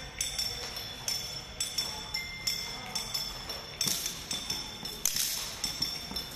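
Sticks struck together in a steady rhythm, sharp clacks about two to three a second, each with a brief high ring, a few louder accents about four and five seconds in.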